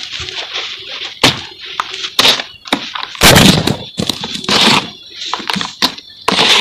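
Dry cement lumps crumbled by hand and dropped into a bowl of loose powder: gritty crunching and a sifting hiss, broken by sharp thuds as chunks break and land, the loudest a little past three seconds in.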